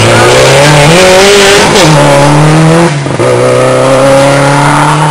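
Subaru Impreza rally car's flat-four engine at full throttle, accelerating away loudly. The pitch climbs through each gear, with an upshift about two seconds in and another about three seconds in.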